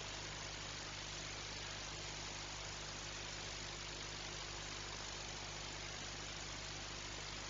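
Steady even hiss with a constant low hum beneath it.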